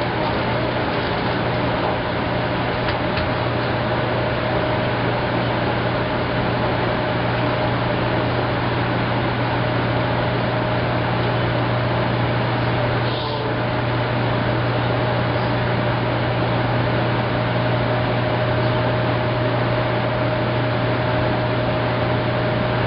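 Maytag SoftMount commercial washer running: a steady machine hum with a constant whine above it, unbroken throughout.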